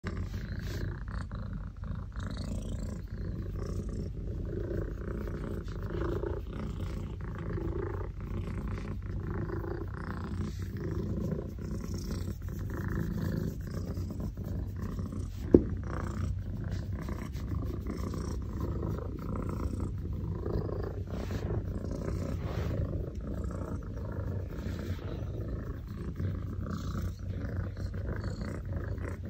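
Cat purring steadily while being stroked on its belly, a close, continuous low rumble. A single sharp click about halfway through.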